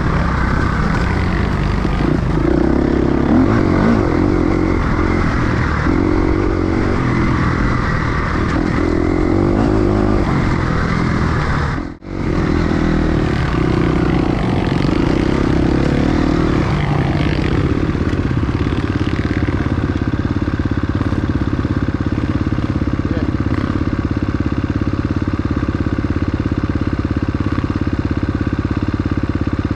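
Enduro motorcycle engine running continuously at riding loudness, with a brief dropout about twelve seconds in.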